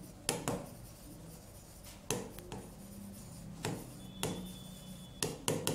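Marker pen writing on a whiteboard: a series of short, sharp strokes and taps, spaced unevenly, as a word is written out.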